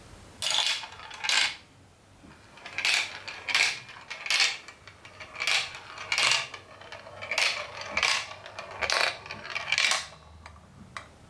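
Small ball rolling and clattering through a plastic marble-run track, in about a dozen short rattling bursts as it runs around the curved pieces and down the tubes. It dies down near the end as the ball settles into a plastic bowl piece.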